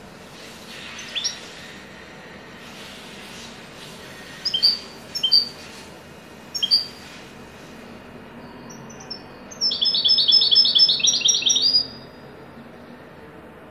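European goldfinch singing. A few sharp separate call notes come first, then near the end a fast trill of repeated notes, the loudest part, over a steady background hiss.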